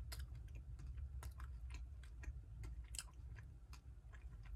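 Faint chewing of a milk chocolate bar with popping candy, with many small scattered mouth clicks.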